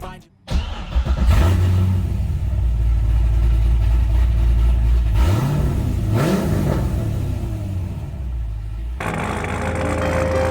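Corvette V8 engine running loudly with a deep, steady rumble, revved once about six seconds in, the pitch rising and falling back. Near the end it gives way to background music.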